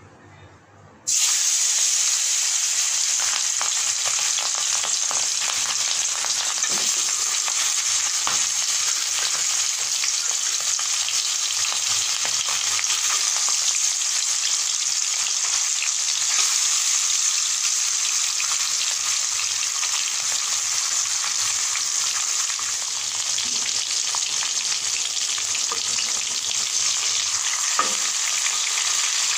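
Fish steaks frying in hot oil in a wok: a steady sizzle that starts abruptly about a second in as the fish goes into the oil. A light knock of the spatula turning the pieces comes near the end.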